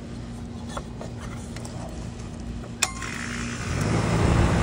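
Small clicks, then a sharp snap about three seconds in as the outdoor disconnect is thrown back in. The air-conditioner condenser unit starts and its compressor and newly replaced condenser fan motor come up to a steady running hum with a rush of air.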